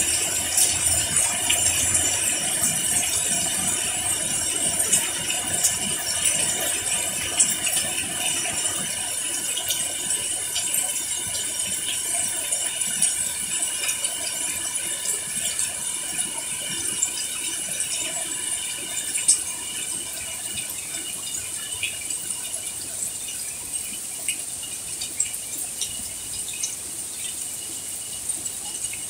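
Night chorus of crickets and other insects: several steady high-pitched trills layered together, with many scattered faint ticks, easing slightly in loudness toward the end.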